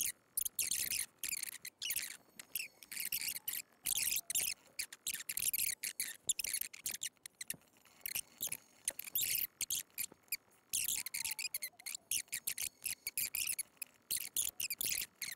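Computer keyboard typing: quick, irregular clatter of keystrokes in short runs, broken by brief silent gaps.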